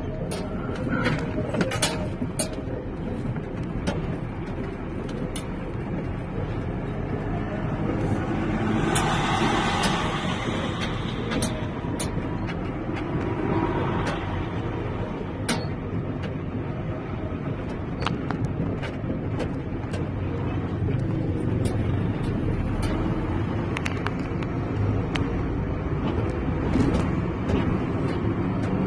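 Vehicle driving over rough, broken pavement: a steady low road and engine rumble with frequent sharp knocks and rattles. A louder rushing swell comes about nine seconds in.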